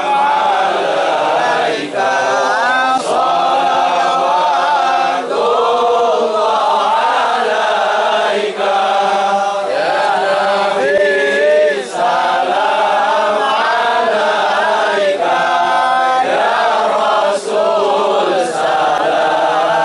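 A large crowd of men chanting together in unison: a religious chant sung in long, drawn-out phrases of a few seconds each, with short breaks between phrases.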